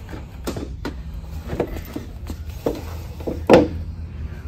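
Several light knocks and thuds as a cardboard model-horse box is handled and set back on a store shelf, the loudest about three and a half seconds in, over a steady low hum.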